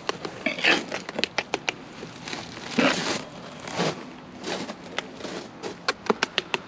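Steel trowel scraping and slapping wet mortar into piles on concrete block, with many sharp clicks of the blade tapping against the block, a quick run of taps near the end.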